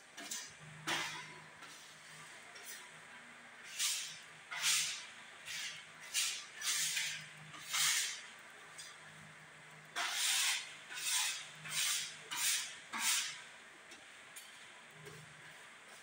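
A series of about a dozen short, irregular hissing noises, each under half a second, over a faint low hum.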